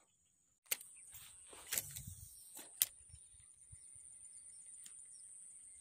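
Faint clicks and a swish of a fishing rod and reel being handled and cast, three sharp clicks about a second apart, over a steady faint high-pitched whine.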